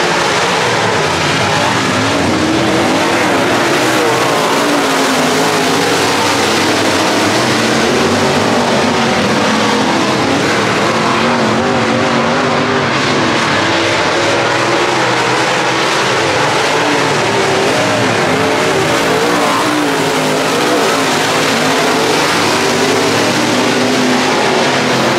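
A field of dirt-track race cars racing, several engines at once, their pitch rising and falling as they go through the corners.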